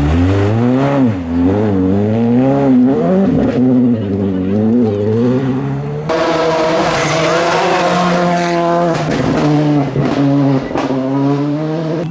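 Rally cars' engines at full attack on a stage. A Škoda Fabia R5's turbocharged four-cylinder rises and falls sharply through gearshifts and throttle lifts. About six seconds in, the sound changes to another car held at high revs, dipping briefly at two shifts.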